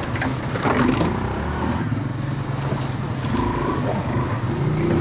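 ATV engine running, its revs rising and falling.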